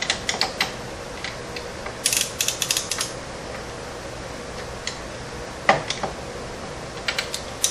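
Ratchet wrench clicking in short runs of quick ticks as a tight bolt is tightened with up-and-down strokes of the handle.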